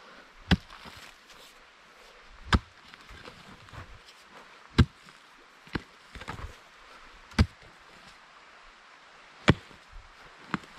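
Digging pick striking into forest soil, sharp thuds about every two seconds. There are five heavy blows, with a couple of lighter knocks in between.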